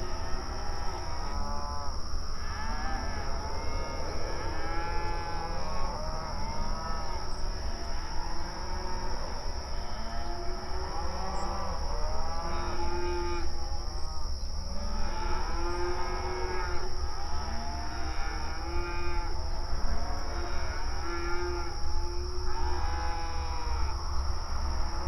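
Many cows mooing in long, mournful calls that overlap one another continuously. A steady high-pitched hum and a low rumble run underneath.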